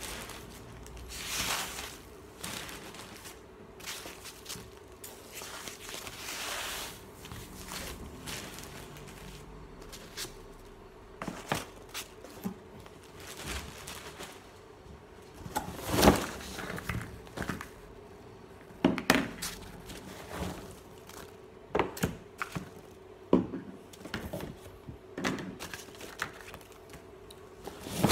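Handling a cardboard parcel packed with polystyrene packing peanuts: rustling and crinkling of peanuts and packaging, then a string of knocks and thuds as the box's contents are tipped out and set down, the loudest thud about 16 seconds in.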